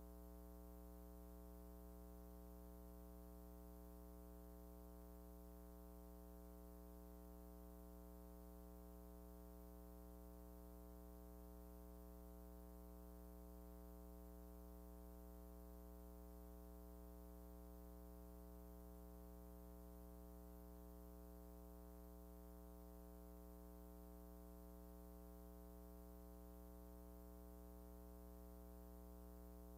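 Near silence, with only a faint steady electrical hum and its overtones that never changes.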